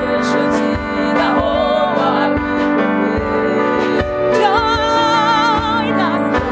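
Gospel worship song: sustained keyboard chords over a steady beat, with a sung line that ends in a long note held with vibrato near the end.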